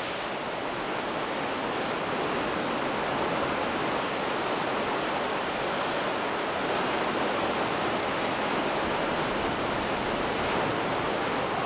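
Steady rushing noise of the sea and wind at the foot of a sea cliff, with no distinct sounds standing out.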